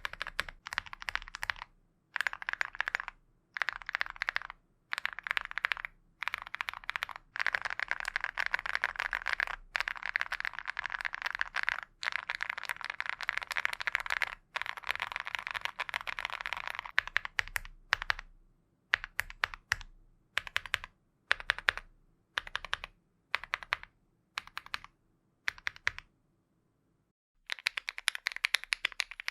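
Typing on a Lucky65 mechanical keyboard with KTT Coconut Latte switches: quick runs of keystrokes in short bursts with brief pauses between them, and one longer unbroken run in the middle. Near the end the typing stops for about a second, then starts again.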